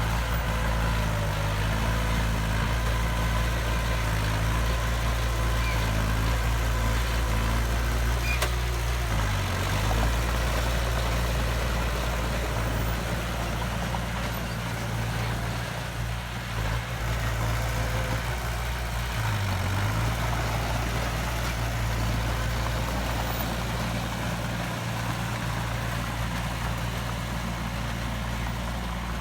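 Heavy construction machine's diesel engine running steadily; its pitch dips briefly twice, about ten seconds apart, as if pulling under load, then recovers.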